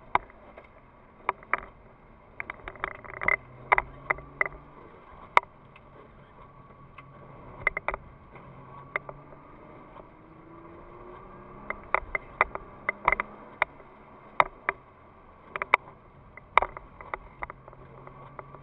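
Inside the cabin of a Nissan GT-R (R35) on a wet track: irregular sharp clicks and ticks over a faint low note from its twin-turbo V6, which rises slightly about ten seconds in.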